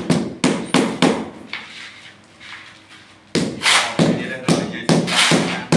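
Rubber mallet tapping a large porcelain floor tile down into its sand-and-cement bed: a quick run of blows about three a second, a pause in the middle, then more blows. A shovel scrapes through the mix alongside.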